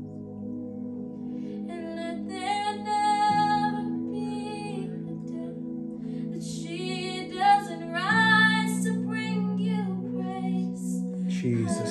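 Worship music: a woman singing drawn-out, gliding phrases over sustained chords that change every few seconds. The singing comes in about two seconds in.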